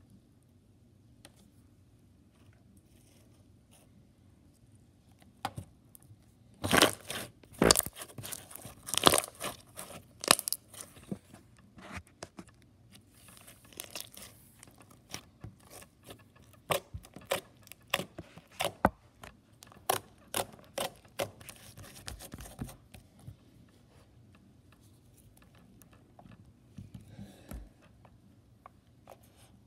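Crunchy slime crackling and popping as it is pressed and squeezed: a fast run of sharp crackles that starts about six seconds in, is loudest soon after, and thins to a few scattered pops near the end.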